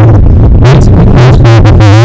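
Loud synthesizer-led electronic music, bass-boosted so that the deep bass is heavy and the track runs at the edge of clipping.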